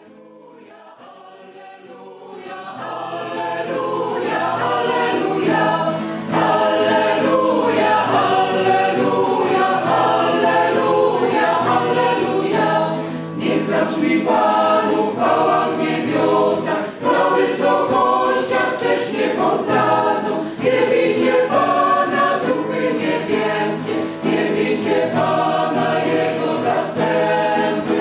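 Choir singing, a piece of choral music that fades in over the first few seconds and then carries on at a steady level.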